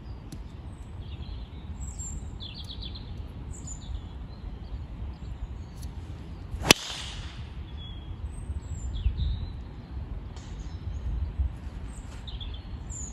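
A single sharp crack of a driver striking a golf ball off the tee, about halfway through, with a short hiss after it. Birds chirp throughout over a steady low rumble.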